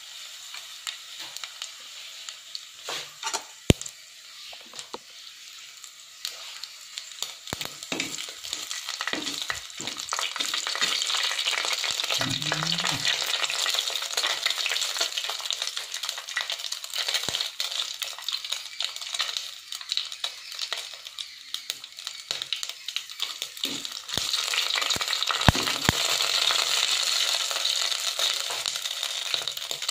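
Mustard seeds, urad dal and dried red chillies sizzling in hot coconut oil in a clay pot, a tempering, with many sharp pops and crackles from the mustard seeds. The sizzle grows louder about a third of the way in.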